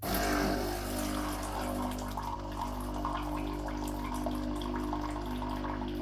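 Philips 2300 bean-to-cup coffee machine dispensing hot water into a cup, starting suddenly with a steady hum and the rush of pouring water that runs on evenly.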